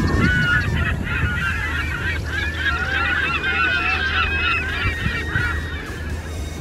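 Many birds calling at once: a dense, overlapping chorus of short, high calls that thins out and stops about five and a half seconds in, over a steady low city rumble.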